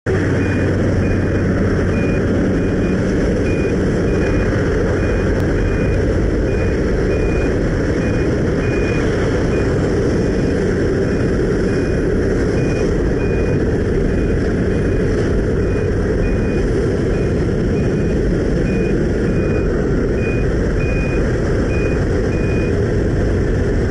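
Loud, steady drone of a jump plane's engine and propeller heard from inside the cabin, with wind rushing in through the open door. A short high beep repeats about three times every two seconds and stops near the end.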